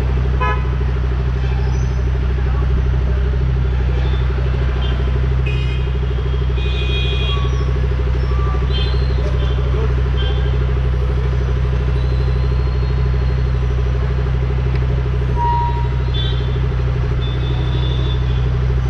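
Motorcycle and car engines idling in stopped city traffic: a steady, even low rumble with no revving. Several short high-pitched toots sound over it now and then.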